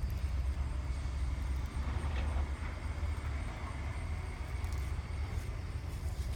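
A motor vehicle running steadily, a continuous low rumble with a light hiss above it.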